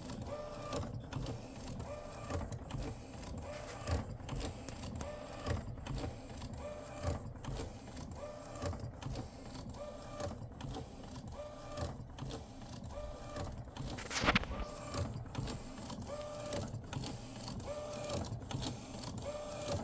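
Epson P906 inkjet printer's print head carriage shuttling back and forth, a short motor whir repeating about every one and a half seconds. Each time the head changes direction at its base there is a grinding noise, with one louder scrape about two-thirds of the way through. The owner takes it for an abnormal mechanical fault, perhaps a blocked wheel at the printer base.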